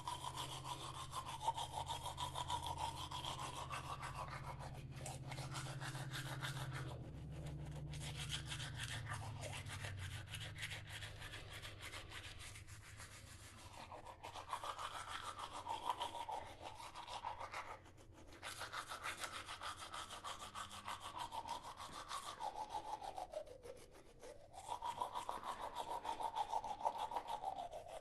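Toothbrush scrubbing teeth with fast back-and-forth strokes, the scratchy sound rising and falling in pitch, broken by a few brief pauses.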